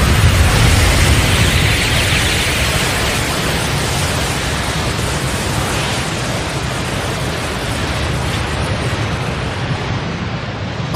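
Sustained explosion rumble with a hissing wash on top, the drawn-out aftermath of a huge blast in an anime sound effect, slowly fading.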